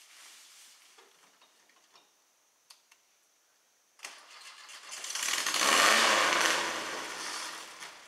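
A rail buggy's Volkswagen engine is started about four seconds in, catches and revs up loudly, then eases back to a lower run.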